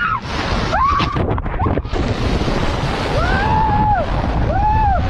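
Loud rushing water and wind noise of a water slide ride, with a rider's wordless whooping cries rising and falling, a short one about a second in and two longer ones near the end.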